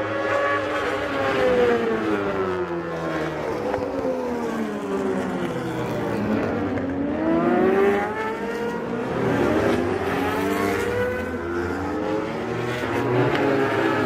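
Several World Superbike race motorcycles passing through a corner in close succession, engines revving at high speed, their pitch falling and then rising again several times as bikes go by and pull away.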